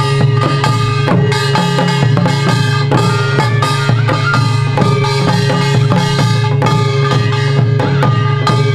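Korean buk barrel drums beaten with sticks in a rapid, driving rhythm for the Jindo drum dance (Jindo bukchum), with a steady ringing tone held beneath the strokes.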